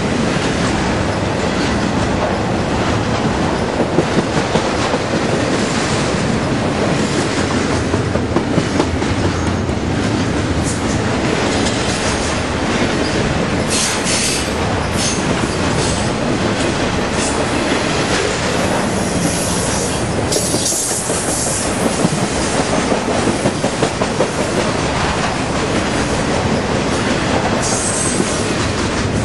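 Intermodal freight cars of a Norfolk Southern train rolling past at close range: a steady rumble of steel wheels on rail, with clusters of clickety-clack as wheel sets cross rail joints. Brief high-pitched wheel squeals come now and then, about halfway through, two-thirds of the way in and near the end.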